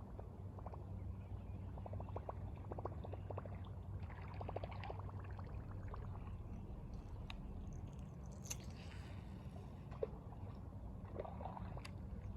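River water flowing and gurgling over rocks, under a steady low rumble, with many small scattered ticks and clicks and a brief hiss about eight seconds in.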